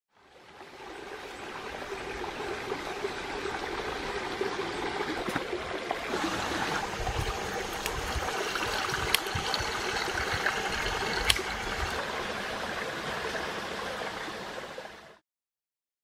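Steady running, gurgling water with a few sharp clicks. It fades in at the start and cuts off suddenly near the end.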